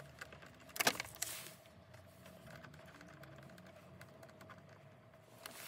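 Small metallic clicks and taps of a screwdriver working a clamp on a car's rubber air-intake hose, with one sharper click about a second in and fainter ticks after it.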